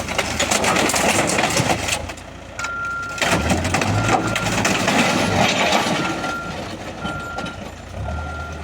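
Loud clattering and crashing, like debris being thrown or loaded. From a few seconds in, a vehicle's reversing beeper sounds a short single tone about once a second over a running engine.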